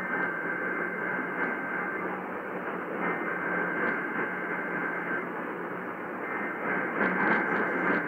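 Emergency Alert System SAME header data bursts played through an AM radio: three bursts of about two seconds each, a second apart, over a steady hiss of AM static. The bursts open a Required Monthly Test of the alert system.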